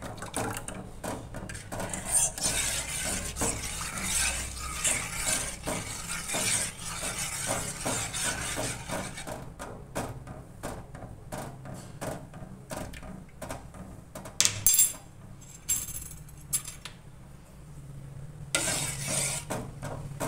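Metal spoon stirring milk in a stainless-steel saucepan, scraping and clinking against the pan for about the first nine seconds, then only scattered clinks, with a second spell of stirring near the end.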